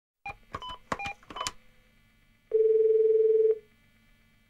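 A telephone being dialled: a quick run of about six keypad beeps, then one steady low ringback tone held for about a second as the call rings through.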